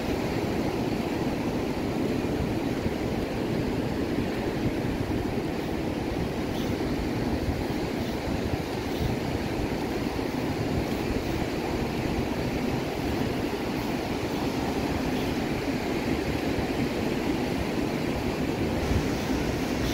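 Ocean surf breaking and washing up the shore in a steady roar, with wind rumbling on the microphone.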